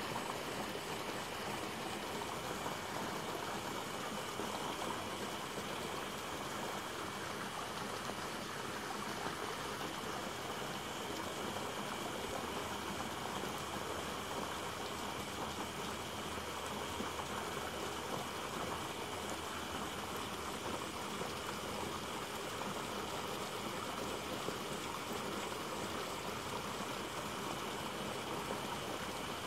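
Steady, unbroken rush of water, even in level, with no single splashes or knocks standing out.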